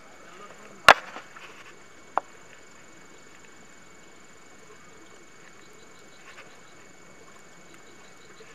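Two sharp clicks while hands pull a fish free of a tangled net snagged on a twig: a loud one about a second in, a weaker one about a second later. Otherwise a faint steady hiss.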